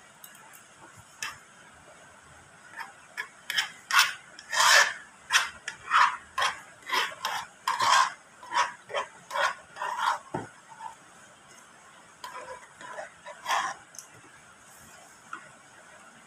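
Plastic plate being scraped clean by hand: a run of short scraping strokes, about two a second, lasting some ten seconds and tailing off into a few softer ones.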